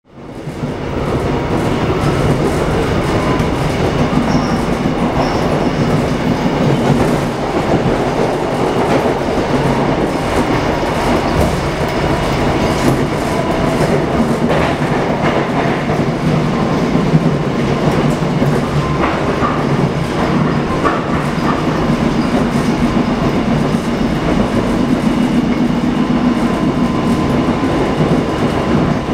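Seoul Subway Line 1 train running, heard from inside the passenger car: a steady loud rumble of the car on the track, with faint steady tones and a few scattered clicks. It fades in over the first second.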